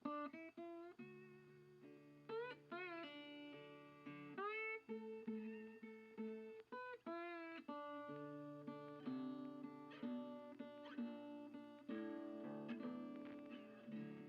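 Background music on guitar, plucked notes in a steady rhythm, with a few notes bending in pitch around two to three seconds in and again near five seconds.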